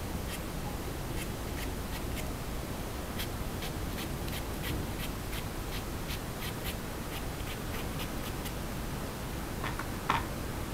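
Paintbrush dabbing and scratching on painted fabric: a string of short, dry scratchy strokes, a few a second, then one louder tap near the end.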